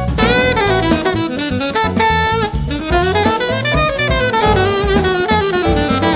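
Instrumental jazz background music: a saxophone melody gliding up and down over a drum kit.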